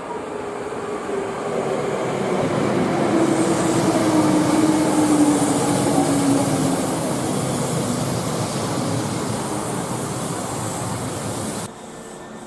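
A train passing at speed: a rising rush of rail and air noise, loudest in the middle, with a whine that slides steadily downward in pitch, cutting off abruptly near the end.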